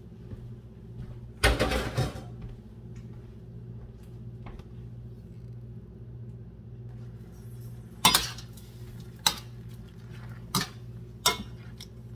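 Plates and stainless-steel cookware clattering and clinking: one loud clatter about a second and a half in, then four sharp clinks spread over the last four seconds, over a steady low hum.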